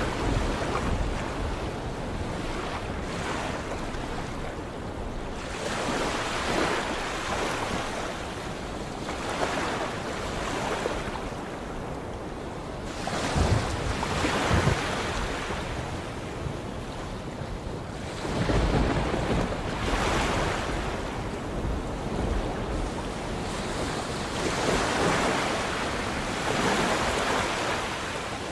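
Sea waves breaking and washing in, swelling every few seconds, with wind.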